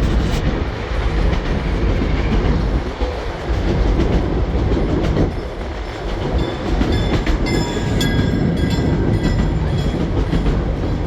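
Steam train carriage rumbling and clattering along the rails at speed. From about six seconds in, short high-pitched squeaks come and go over the rumble.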